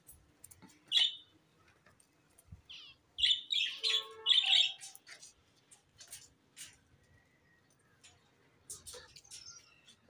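Cage birds chirping in short bursts: one call about a second in, then a louder run of chirps and calls from about three to five seconds. Scattered light clicks and knocks come from handling at the aviary's mesh door.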